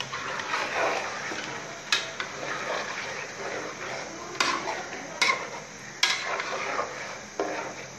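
A metal spatula stirring chicken and potato pieces in thick masala in a metal pot, scraping through the mixture and clinking sharply against the pot's side about five times.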